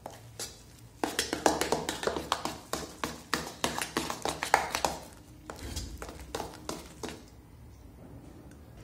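A hand mixing and beating thick urad dal batter in a stainless steel bowl: quick wet slaps and taps, several a second, starting about a second in and easing off about halfway through.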